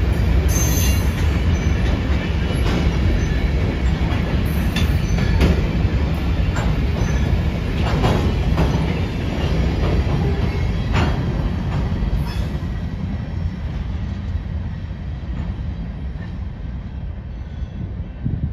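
A slow freight train's covered hopper cars rolling past: a heavy low rumble of steel wheels on rail, with scattered clicks and a few short high wheel squeals. The sound fades steadily over the last few seconds as the end of the train pulls away.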